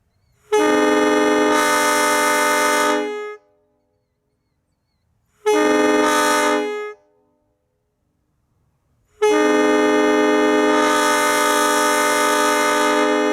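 Prime 920 locomotive air horn sounding three blasts: a long one of about three seconds, a short one, and a third starting about nine seconds in that is still going at the end. Each blast is a chord of several tones, with a rush of air hiss rising partway through, and the first two fall off as they shut off.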